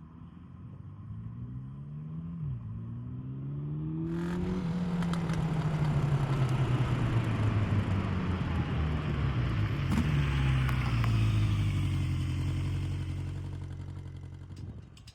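Honda CB 1100 RS's air-oil-cooled 1140 cc inline-four on its stock exhaust, accelerating with the pitch rising, a brief drop about two and a half seconds in like a gear change. It then runs louder and steadier, the pitch easing slowly down, and fades near the end.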